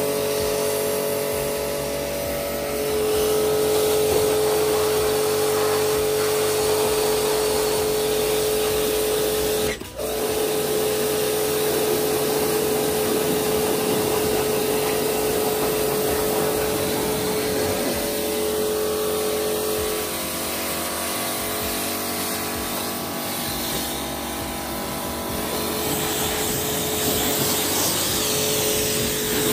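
Electric pressure washer running with a steady motor hum and spray hiss. The motor cuts out for a moment about ten seconds in, then starts again.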